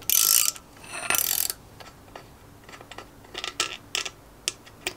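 Ratcheting wrench clicking in two quick bursts as it backs a nut off a rusty stud. Then come scattered light metal clicks as the loosened nut is turned off by hand.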